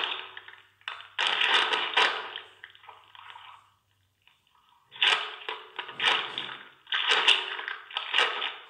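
Crackling, rustling noise in irregular bursts about a second long, with a pause of about a second near the middle.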